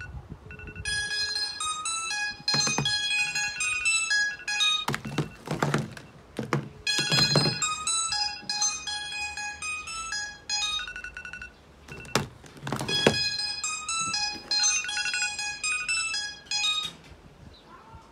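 Smartphone ringtone and alarm melodies playing from the phones' small speakers, tunes of short bright notes that change from one phone to the next. Several knocks as the phones are handled and set down.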